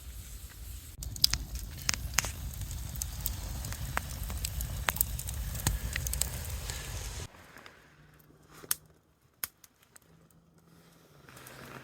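Campfire crackling and popping over a low rumble; about seven seconds in, the sound drops abruptly to a much quieter stretch with only a few faint clicks.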